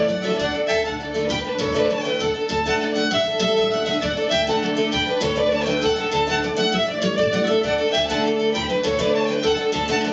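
Two fiddles and an acoustic guitar playing a Scottish fiddle tune live, the fiddles in a quick, even run of bowed notes over the guitar accompaniment.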